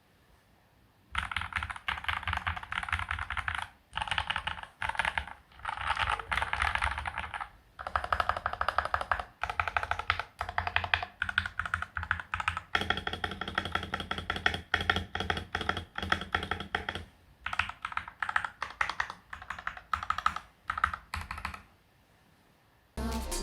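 Typing on an FL-MK870 mechanical keyboard with Gateron Milky Yellow Pro linear switches and PBT Cherry-profile keycaps, in fast runs of keystrokes broken by short pauses. Music starts near the end.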